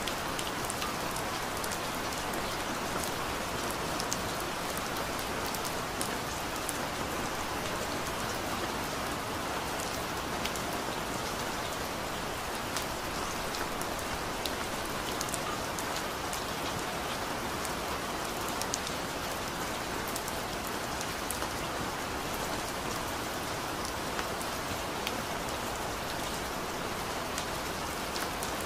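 Steady rain falling on a surface: an even hiss with many scattered drops ticking through it.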